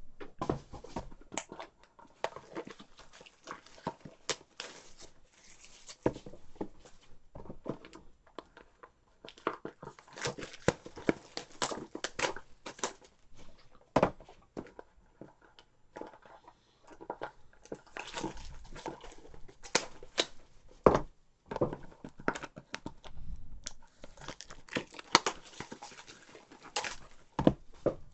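Baseball card packs being torn open and handled: irregular tearing and crinkling of pack wrappers, with sharp clicks and taps of cards and boxes on the table.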